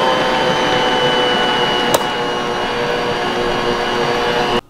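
Bosch kitchen machine's motor running steadily with a whine, its wire whisks churning stiff cookie dough under a clear plastic lid. There is a single click about two seconds in, and the motor cuts off suddenly just before the end.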